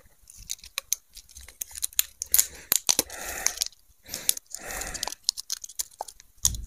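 Small packaging being cut with a knife and torn open, crinkling, with scattered sharp clicks and three longer tearing rasps in the middle.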